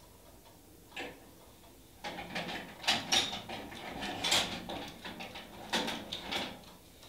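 Hands rummaging among small hard nail-stamping tools and containers. A single click comes about a second in, then from about two seconds in a run of irregular knocks, scrapes and clatters.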